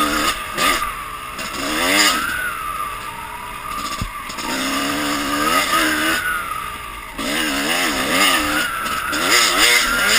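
Dirt bike engine revving up and down again and again as the throttle is worked on a trail ride, with a single sharp knock about four seconds in.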